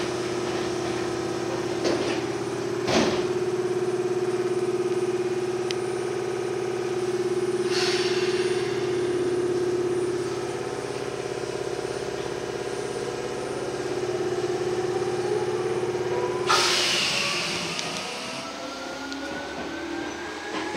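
Inside a Tokyu 8500 series electric commuter train: a steady hum while it stands with doors open, a knock about three seconds in as the doors slide shut, then near the end a hiss of released air and the motor whine rising steadily in pitch as the train pulls away and accelerates.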